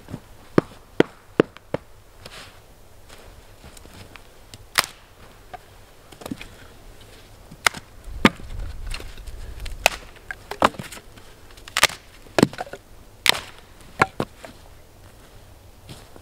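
Dry firewood sticks being chopped and snapped: a series of sharp woody cracks at irregular intervals, a few light quick ones at first, then heavier chops every second or so through the second half.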